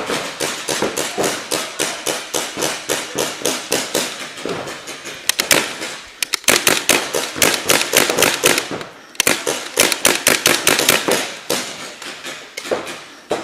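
Paintball markers firing, several guns shooting strings of quick pops at several shots a second, with short lulls about six seconds in and again about nine seconds in.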